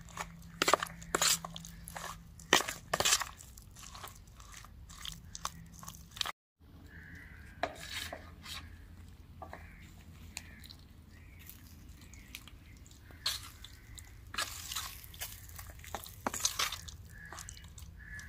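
Metal spoon mixing raw boneless chicken pieces into a thick cornflour, egg and sauce marinade in a plastic tub: irregular wet squelches and scrapes of the spoon against the plastic, with a short break about six seconds in.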